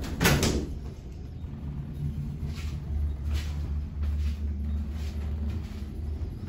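Elevator doors of a vintage Westinghouse hydraulic elevator bang shut just after the start. This is followed by a steady low rumble from the hydraulic drive as the car gets under way, with a couple of faint clicks.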